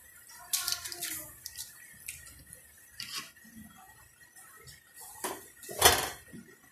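Water splashing and dripping in an aluminium cooking pot as handfuls of soaked rice are put in, in a few scattered splashes with the loudest near the end.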